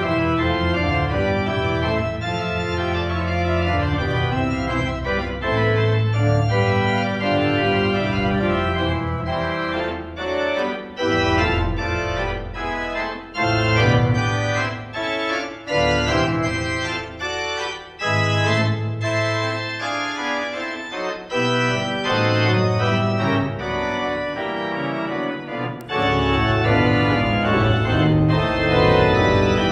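1940 Möller pipe organ playing a fugue, several lines of sustained notes moving against one another, with deep bass notes that come and go.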